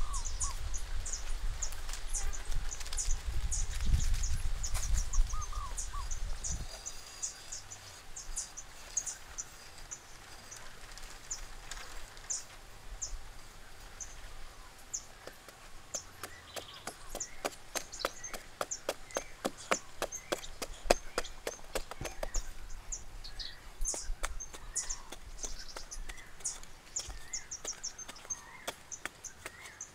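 Outdoor forest ambience with birds chirping and calling. A low rumble fades out about six seconds in, and a run of rapid, evenly spaced clicks comes about two-thirds of the way through.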